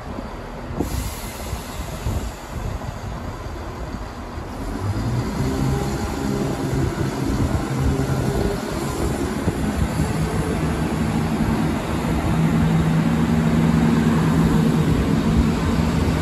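Diesel multiple-unit train engines running at a station platform: a low, steady engine drone comes in about a third of the way through and grows louder towards the end as a train moves past close by.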